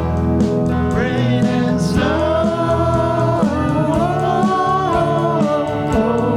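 A band playing a country-flavoured song live: drums keeping a steady beat, bass and guitars, with a held lead melody that bends and slides in pitch.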